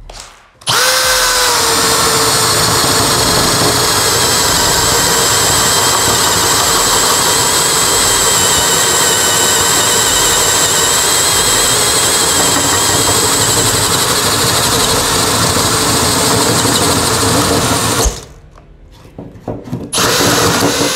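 Bosch GSB 185-LI 18 V cordless drill driver in first gear, boring a 32 mm spade bit through pine. It runs steadily under load for about seventeen seconds, dipping slightly in pitch as the bit bites, then stops. The bit passes through a knot inside the wood, making the hole harder to bore; a short burst of noise follows near the end.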